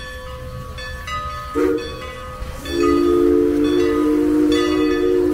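Steam locomotive's chime whistle sounding several notes at once: a short toot, then about a second later a long, loud blast that holds.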